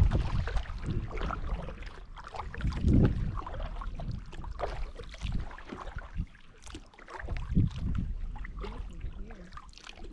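Kayak paddling on choppy water: irregular paddle splashes and water slapping the hull, with gusts of wind rumbling on the microphone that swell and fade.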